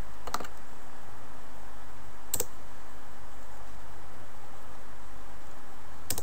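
A few sharp computer mouse and keyboard clicks over a steady background hiss: one about a third of a second in, another about two and a half seconds in, and a fast run of key taps starting at the very end.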